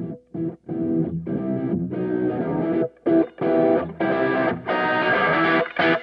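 Background music: a guitar-led track whose chords come in short stabs broken by brief gaps, growing louder and fuller toward the end.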